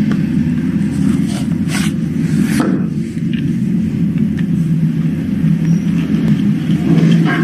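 A steady low machine hum runs throughout, with a few brief rustles and scrapes in the first three seconds or so as a small cardboard box is opened by hand and a WiFi data stick is taken out.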